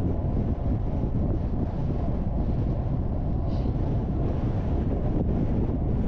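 Wind buffeting the microphone on a moving bicycle: a steady low rumble.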